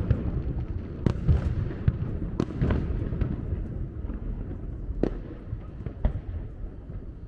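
Aerial fireworks display going off: a string of sharp bangs and cracks from bursting shells, spaced about a second apart or more, over a continuous low rumble. The rumble thins out near the end.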